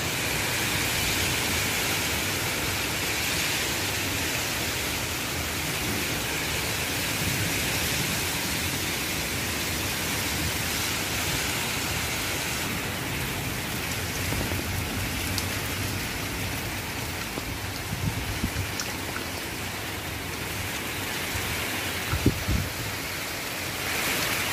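Heavy rain pouring steadily, streaming off the edge of a corrugated porch roof. A few short low thumps stand out near the end.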